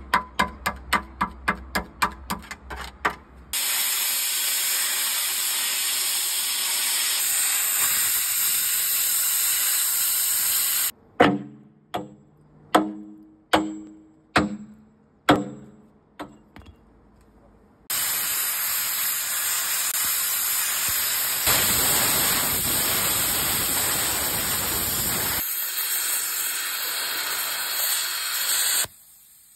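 Rapid hand scraping strokes on steel, about five a second, give way to a cutting torch hissing steadily as it cuts the bucket steel. About eleven seconds in come about eight ringing blows on steel, then the torch hisses steadily again until just before the end.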